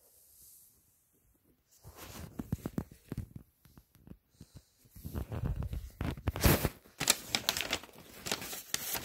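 A paper instruction leaflet rustling and crinkling as it is unfolded and handled: irregular crackles and taps that start about two seconds in and grow louder past the middle.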